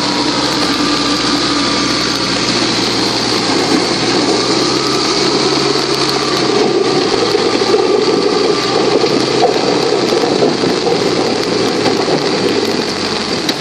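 Steady rain noise mixed with the diesel engine of a JCB backhoe loader running close by; the sound swells a little about six seconds in.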